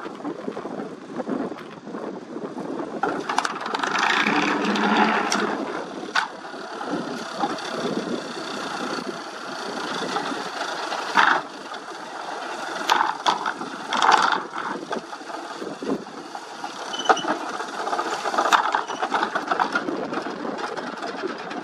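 Excavator with a vibratory sheet-pile hammer hanging from its boom, engine running under a rattling metal clatter. Sharp metallic clanks come every few seconds as the hammer's clamp works around the steel sheet piles.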